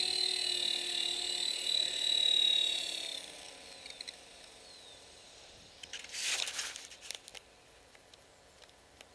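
Dynam E-Razor 450 electric RC helicopter's motor and rotor whine, a steady high whine that winds down and dies away about three seconds in. Later a short rustling noise and a few light clicks.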